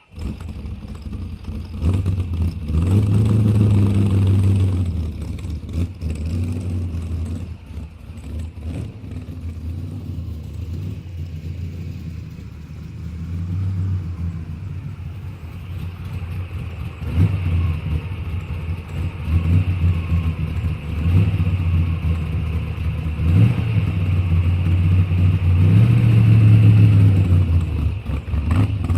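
Car engine running and being revved several times, rising and falling in pitch and loudness between stretches of lower running.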